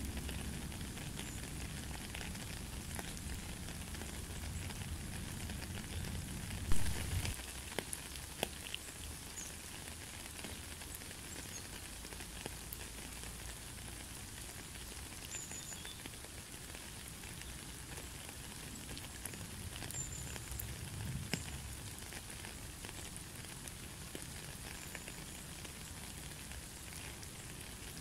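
Rain falling on a puddle and wet gravel: a steady hiss scattered with small drip ticks. A low rumble underlies it until about seven seconds in, where a single loud thump stands out.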